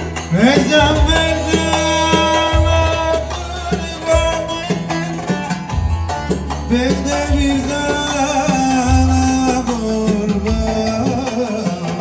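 Live Turkish folk dance music from a band: bağlama playing an Ankara oyun havası over a heavy low beat, with singing.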